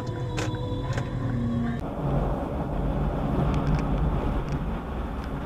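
Steady road and engine noise of a car driving on a highway, picked up by its dashcam. Before that, steady tones from the previous clip cut off suddenly about two seconds in.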